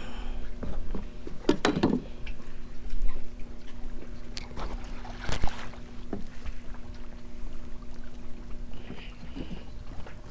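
Baitcasting fishing reel being cranked as a hooked fish is wound in: a steady whir with a few sharp knocks. The winding stops near the end.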